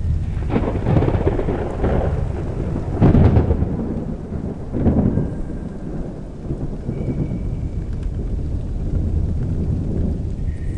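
Thunder rolling and rumbling in a rainstorm, with several heavy peals, the loudest about three seconds in, then a lower continuous rumble.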